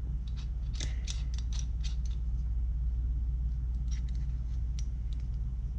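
Small clicks and rattles from a gimbal's metal phone-mount clamp being handled and turned in the hands. There is a quick run of clicks in the first two seconds and a couple more near the end, over a steady low hum.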